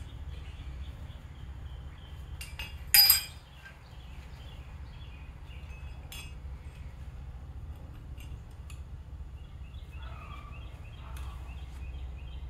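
Metal engine parts clinking as they are handled during engine assembly: one loud, sharp, ringing clink about three seconds in and a few lighter clicks afterwards, over a steady low hum.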